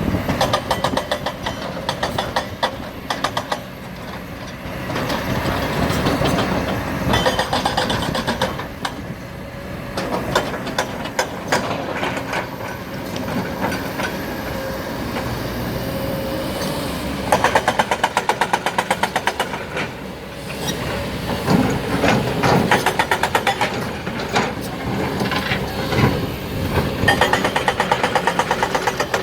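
Heavy diesel machinery at work in a rock quarry: engines running steadily under fast metallic rattling and the clatter of rock, which comes in spells of rapid, evenly spaced clicks.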